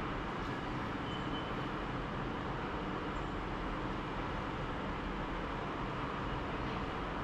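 Steady background traffic and station ambience: an even noise with no distinct events.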